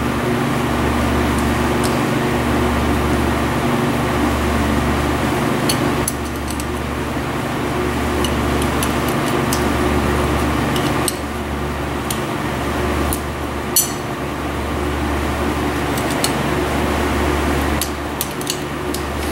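A steady electric machine hum with a pulsing low drone, with a few light metallic clicks from wrenches on braided fuel-hose fittings, the sharpest about 14 seconds in.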